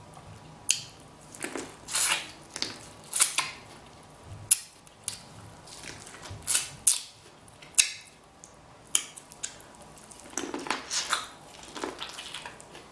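Close-miked eating of a seafood boil in butter sauce: a dozen or so short, sharp wet smacks, crunches and squishes at irregular intervals, the sounds of biting and chewing shellfish.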